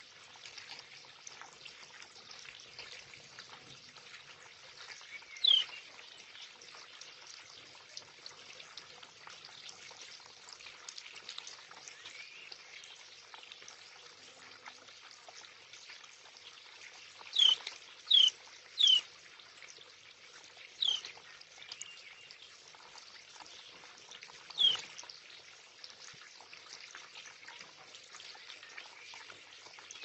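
Garden water feature trickling steadily, with six short, loud chirps from a house sparrow, each a quick falling note. One comes after about five seconds, then a quick run of three past the middle, then two more spaced apart.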